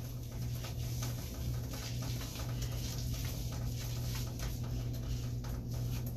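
Wet hair being combed and worked through by hand, making irregular soft rustling strokes over a steady low hum.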